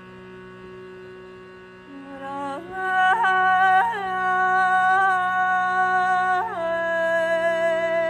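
Shrutibox droning a steady chord under a woman's wordless singing. The voice comes in about two seconds in, loud and sustained, holding long notes with brief ornamental turns, and settles onto a lower held note near the end.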